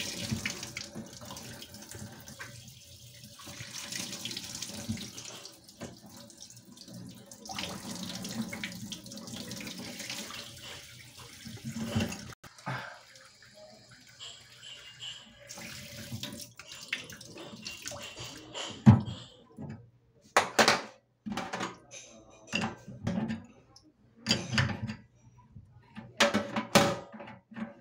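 Tap water running from a faucet spout into a stainless steel sink for the first dozen seconds, then stopping. After that come a series of sharp knocks and clacks, scattered and uneven, as the faucet fittings are handled on the sink deck.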